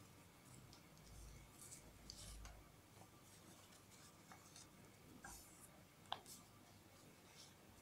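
Faint rustling and creasing of a sheet of origami paper being folded by hand, with one sharper tick about six seconds in.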